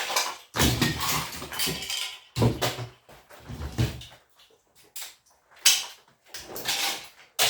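Scrap electric motor being worked by hand: a run of scraping and rattling bursts of metal and hard plastic, several longer ones in the first half and shorter knocks later.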